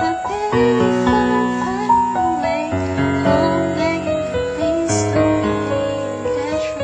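Music led by a piano, playing sustained chords that change about every second.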